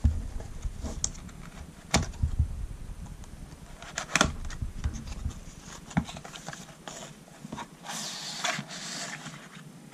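A cardboard product box handled and opened by hand: sharp taps and knocks of the cardboard about every two seconds, then a longer rustling scrape near the end as the card slides.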